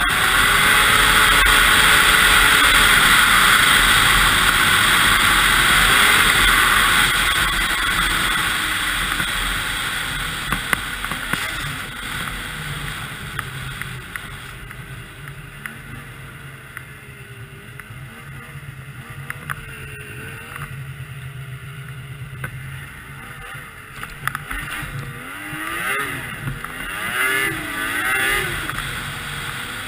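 2002 Yamaha SX Viper 700 snowmobile's three-cylinder two-stroke engine running on the trail, recorded from the rider's helmet. For the first several seconds it runs at speed under a loud rush of wind and snow noise. It then eases off, and the engine pitch rises and falls with the throttle, revving harder several times near the end.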